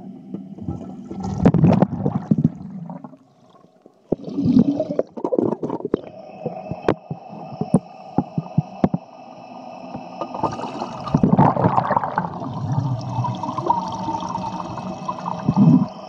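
Toilet flushing, recorded through the microphone of a phone sealed in a waterproof case inside the bowl: rushing, gurgling water with many sharp knocks. The water sound drops away briefly about three seconds in, then comes back stronger in the second half.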